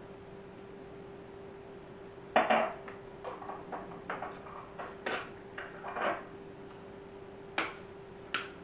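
A small metal measuring spoon and spice jars clinking and knocking while seasoning is measured out and jars are handled on a stone counter: about seven separate short clinks and taps, the loudest about two seconds in, over a faint steady hum.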